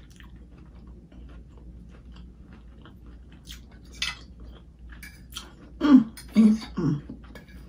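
A person chewing a mouthful of steak and rice close to the microphone, with small mouth clicks and a fork clicking against the plate. About six seconds in come three short, loud hummed "mm" sounds of enjoyment.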